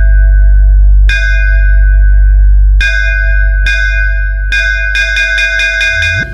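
Electronic DJ sound-check music: a bell-like synth tone struck about once a second, each hit ringing out, over a loud, sustained deep sub-bass drone; the hits come faster, several in quick succession, near the end.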